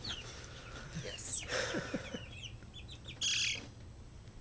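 Young Rhode Island Red chicks cheeping: many short, falling peeps, loudest a little over a second in. A short noisy burst comes about three seconds in.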